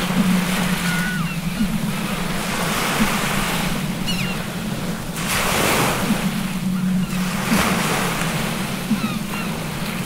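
Rough open-sea waves surging and breaking in a continuous wash that swells about halfway through, with a few brief, high, falling seagull cries. A steady low hum runs underneath.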